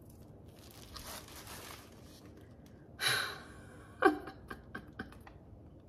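Soft rustling of tissue paper being handled, then about three seconds in a breathy gasp of delight, followed by a few short sharp crackles of paper.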